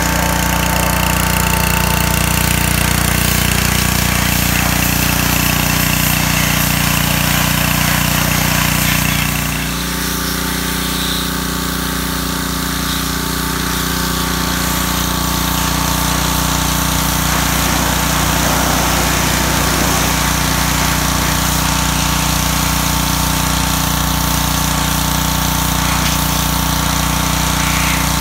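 Pressure washer running steadily, its motor and pump drone mixed with the hiss of the high-pressure water jet spraying. The sound dips briefly about ten seconds in.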